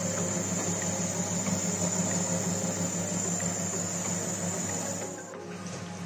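Steady low hum with a thin, continuous high-pitched whine over it; the whine cuts off about five seconds in and the hum goes on a little quieter.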